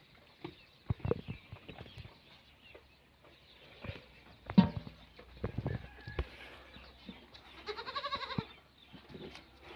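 A goat bleats once near the end, a quavering call of about a second. Scattered knocks and clicks run throughout, the loudest a sharp knock about halfway through.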